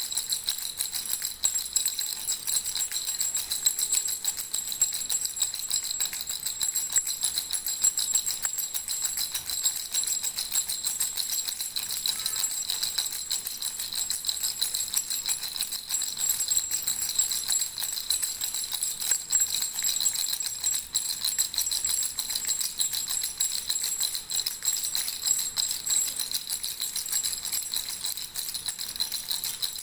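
Baby rattle shaken continuously and fast: a steady, high jingling that never pauses.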